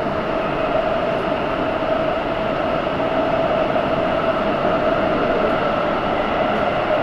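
Gwangju subway train running, heard from inside the passenger car: a steady rush of wheel and rail noise with a steady whine over it.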